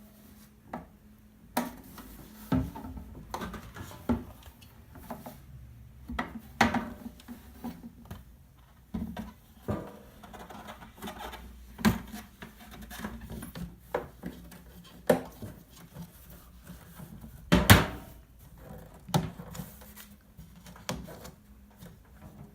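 Olivetti Valentine portable typewriter being handled: irregular clicks, knocks and rubbing a second or so apart, with a louder cluster of knocks about seventeen seconds in.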